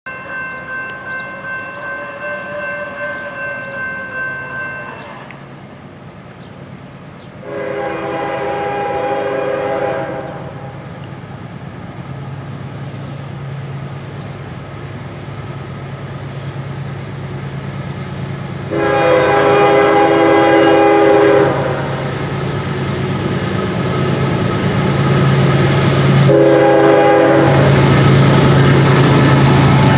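Approaching GE ES40DC diesel locomotive sounding its horn for a grade crossing: two long blasts, a short one, and a further blast beginning near the end, over the low hum of its diesel engine, which grows louder as the train nears. A pulsing ringing tone is heard for the first few seconds.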